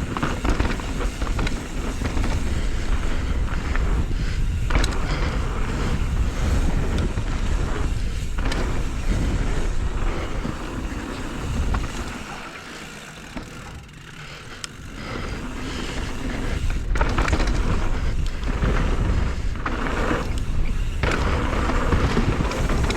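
Mountain bike descending a dirt trail: tyres rumbling over the ground, the bike rattling with sharp knocks, and wind on the camera microphone. It quietens for a few seconds midway, then picks up again.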